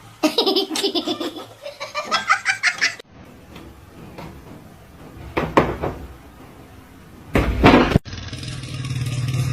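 Laughter in quick, pitched bursts for about three seconds. It is cut off by a quieter stretch with two short, loud vocal sounds.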